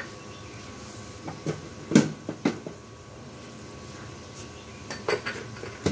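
A handful of short knocks and clinks of small ceramic bowls and a spoon being handled on a kitchen counter, the loudest knock about two seconds in.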